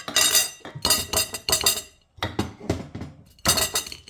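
Hot hard-boiled eggs being cracked and peeled: the shell crackles and clinks against a dish in about four short bursts of clicks.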